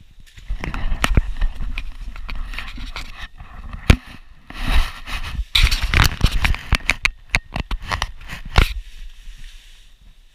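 Close rustling and scraping with irregular sharp knocks as the camera is handled and repositioned. A single sharp knock about four seconds in is the loudest; the noise stops near the end.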